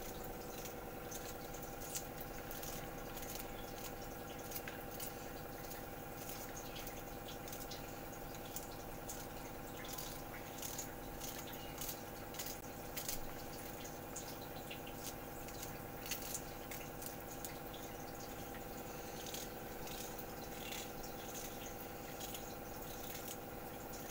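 Small kitchen knife chopping cauliflower florets into fine crumbs held in the hand: faint, irregular crisp clicks as the blade cuts through the florets, over a steady background hum.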